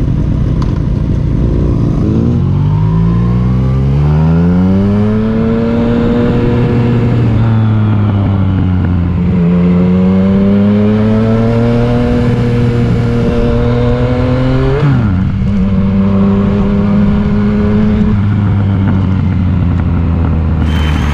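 Yamaha MT-09's three-cylinder engine pulling away and accelerating along the road: the engine note climbs steadily from about two seconds in, sags and climbs again, then drops sharply about fifteen seconds in before holding steady at cruising speed.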